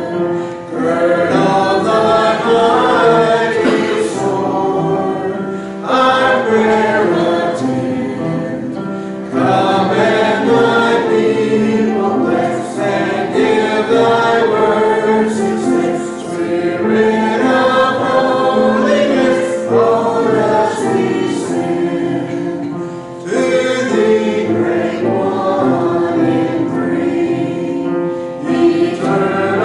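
A church congregation and choir singing a hymn together, in sung phrases with short breaks for breath between them.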